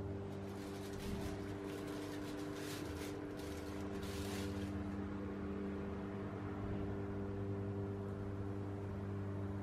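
Steady hum of a small fan motor, the battery-driven blower of a Lotusgrill charcoal grill. For a few seconds near the start an irregular crackling hiss rides over it.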